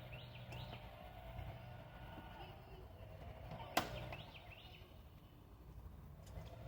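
Small birds chirping in short quick calls over a faint low hum, with one sharp click a little past the middle.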